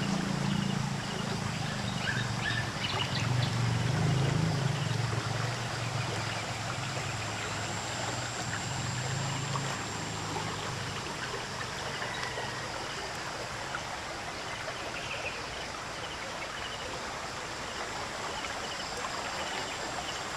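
Muddy, swollen river flowing fast: a steady wash of moving water. A low hum runs under it and fades out about halfway through.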